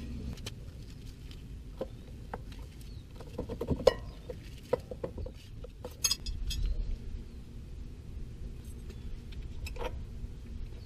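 Scattered metallic clinks and knocks of hand tools and car parts being handled, with sharper knocks about 4 and 6 seconds in.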